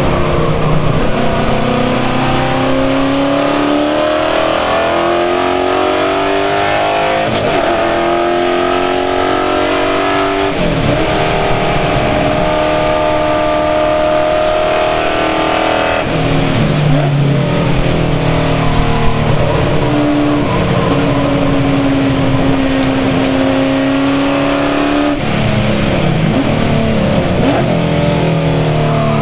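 Holden VH Commodore race car engine heard from inside the cabin under hard racing use, its revs climbing steadily, holding high, and dropping suddenly several times with gear changes and lifts for corners before climbing again.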